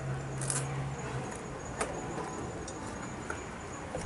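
Scattered light clicks and knocks as hands work the Suzuki TS185ER's white plastic oil tank and its fittings loose, with a low steady hum in the first second or so.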